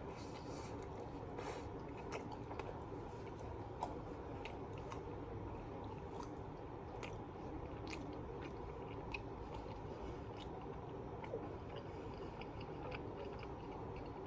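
Close-up chewing of a bite of pizza: wet mouth clicks, smacks and soft crunches coming irregularly, over a steady low hum.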